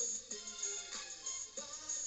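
Tamil film music played on an FM radio receiver: a regular beat under a gliding melodic line.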